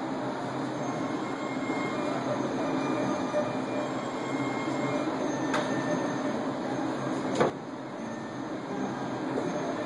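Steady rumbling background noise with a sharp knock about seven and a half seconds in.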